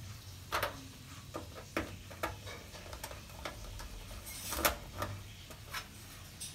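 Irregular small clicks and taps, a dozen or so, the sharpest about half a second in and again about four and a half seconds in: a screwdriver and tiny screws being worked while new LED backlight strips are fastened inside an opened TV.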